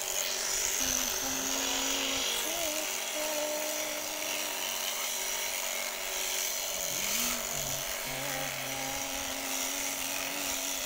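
Sheep-shearing machine handpiece running steadily as it clips fleece, with a melody of held notes playing over it.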